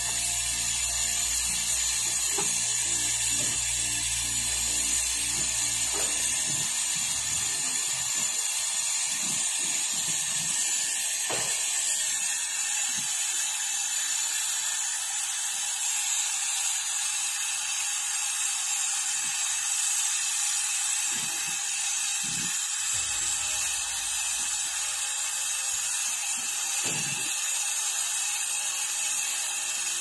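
Brazing torch flame hissing steadily as it heats the copper filter drier joint on a refrigerator's pipes for brazing.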